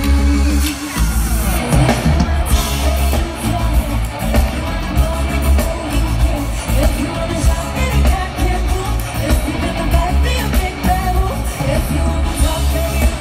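Live pop concert heard from within the audience: a female vocal group singing over an amplified band with drums and keyboards, with heavy bass.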